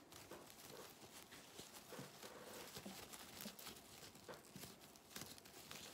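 Faint rustling and crinkling of ribbon handled by hand as it is tied into a knot, with scattered light ticks.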